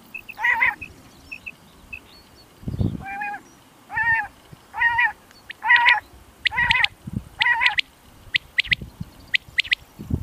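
Common quail calling: a run of short, wavering calls about one a second, then several quick, sharp notes near the end.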